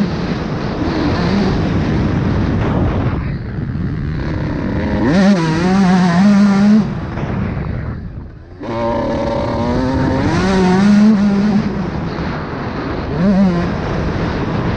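Suzuki RM 125 two-stroke motocross bike with a Pro Circuit exhaust, ridden hard: the engine note rises again and again as it revs out through the gears. The throttle is shut off about eight seconds in, then the engine picks up and revs out once more.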